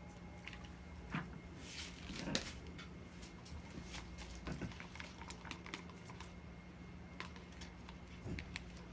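Faint scattered clicks and light taps from small objects handled on a worktable, over a low steady hum.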